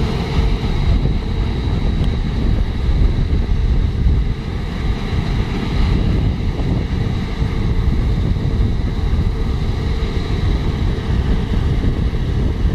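Claas Lexion 770 TT tracked combine harvester cutting wheat, its engine and threshing machinery running steadily, with a thin steady high whine. Wind rumbles on the microphone.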